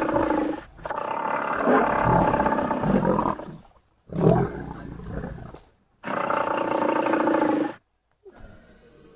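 A big cat roaring in several separate bouts, each lasting one to three seconds, with abrupt cuts between them.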